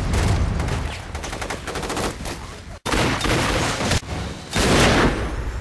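Rapid automatic gunfire, about eight to ten shots a second, with abrupt cuts between bursts as in an edited montage. A loud surge of noise comes near the end.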